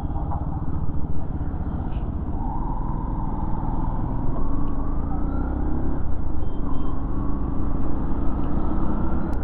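Yamaha FZ-X's single-cylinder engine pulling under load as the bike rides off. Its note rises, dips about six seconds in, then rises again, over a steady low rush of wind and road noise.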